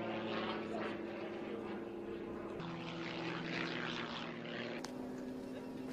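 Single-engine aerobatic propeller plane's engine and propeller droning steadily in flight. Its pitch jumps abruptly twice, with a short click about five seconds in.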